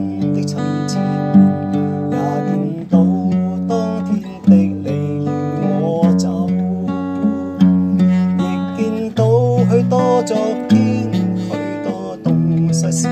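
Steel-string acoustic guitar played by hand, picking and strumming chords with a melody on top, in a steady rhythm with a strong accent about every second and a half.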